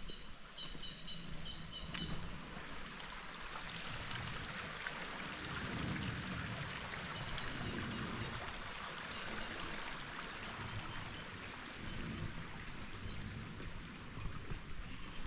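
Mountain creek rushing steadily over rocks, swelling slightly midway, with a few quick runs of high chirps in the first two seconds.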